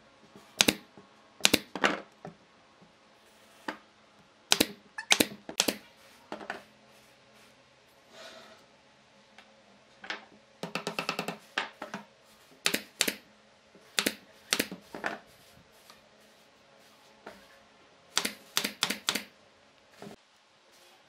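Brad nailer firing into wood, sharp shots singly and in quick pairs and groups, with a fast rattle of clicks about eleven seconds in.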